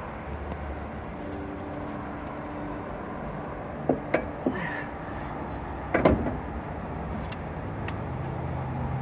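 Knocks and clicks of work on a Land Rover Defender's engine as the cylinder head is taken off, over a steady low hum. A few knocks come around the middle, and the loudest is about six seconds in.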